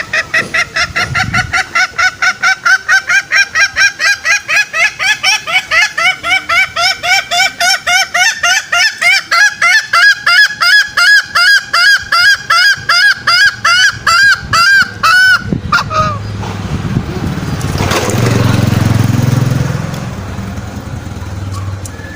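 Green junglefowl giving a long, fast series of short repeated calls, about four or five a second and quickening slightly, that stops abruptly about fifteen seconds in. After it comes a low rumble with a hiss that swells and fades.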